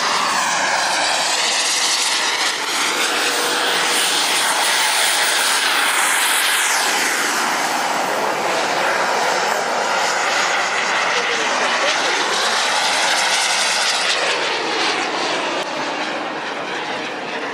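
Jets Munt Merlin M90 gas turbine of a 1/7-scale TNT Models F-16 model jet at high power, a loud roar with a very high whine that rises over the first few seconds, as the jet takes off and flies past.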